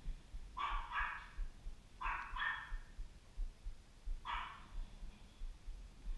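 Dog barking five times: two quick pairs, then a single bark about four seconds in.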